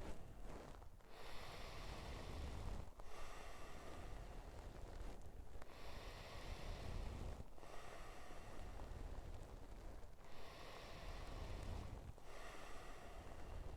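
A person breathing deeply in and out in a steady guided-breathwork rhythm, a round of TT20 breathing. Each breath is a hissing rush of air, about one full breath every two and a half seconds, with a brief pause between breaths.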